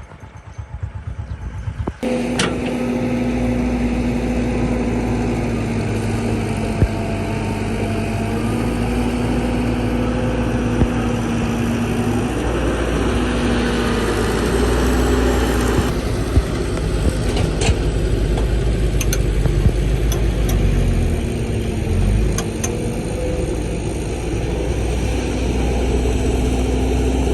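Excavator engine and hydraulics running, with a held whine that steps up and down in pitch now and then and a few sharp clanks. It comes in suddenly about two seconds in, after a quieter, rattling start.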